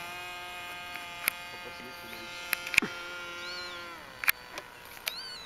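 Model aircraft engine buzzing steadily in flight, dropping in pitch about four seconds in. A few sharp clicks and a couple of short chirps are also heard.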